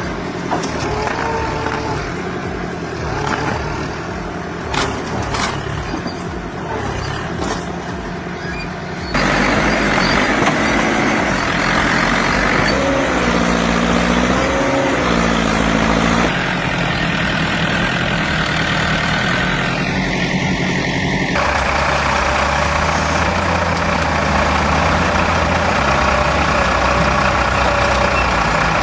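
Heavy diesel machinery engines working under load in several short clips, the sound changing abruptly about 9, 16 and 21 seconds in. Between about 12 and 16 seconds the engine pitch rises and falls repeatedly as it is revved.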